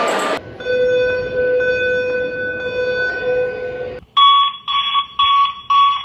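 Fire alarm voice-evacuation speakers sounding evacuation tones. First comes a steady chord-like tone for about three seconds. Then, about four seconds in, a pulsing tone beeps on and off about twice a second.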